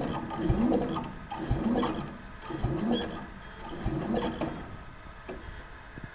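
Cold Craftsman cast-iron Tecumseh engine on a Sears Suburban 12 garden tractor being cranked by its starter on a jump pack, turning over with a pulse about once a second and not catching. The pulses fade out after about four and a half seconds.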